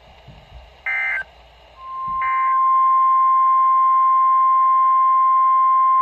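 Emergency Alert System broadcast tones: two short warbling SAME data bursts, the end-of-message code of the alert before. About two seconds in, the NOAA Weather Radio 1050 Hz attention tone starts and then holds as one loud, steady tone over radio hiss.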